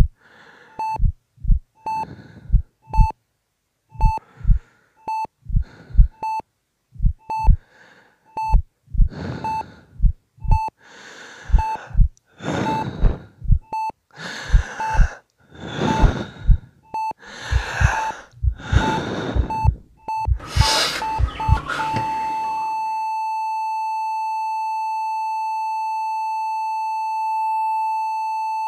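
Patient heart monitor beeping with each heartbeat, with low heartbeat thumps and gasping breaths that grow louder; the beats come quicker near the end, and about 22 seconds in the beeping turns into one continuous tone, the flatline of a heart that has stopped.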